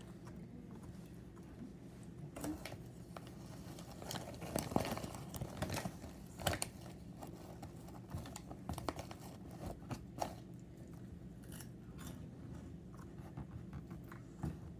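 A plastic snack bag crinkling and rustling as a hand reaches into it, with crunchy chewing of snacks; short scattered crackles, busiest about halfway through.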